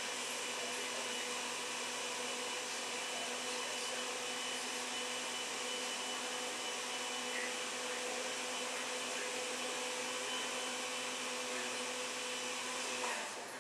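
A steady machine hum with a constant whine running through it, which stops abruptly near the end.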